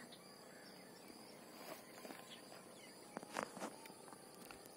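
Near silence: faint outdoor ambience with a few soft clicks and ticks, mostly in the second half.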